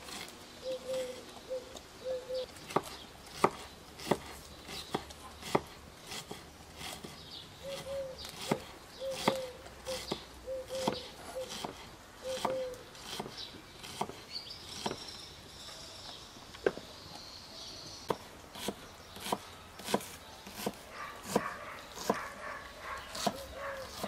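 A dog whimpering in short, repeated high whines, in groups, over a run of sharp clicks and knocks.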